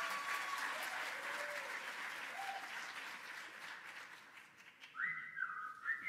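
Audience applause fading away. About five seconds in, the next song's music starts with a high, stepping melody.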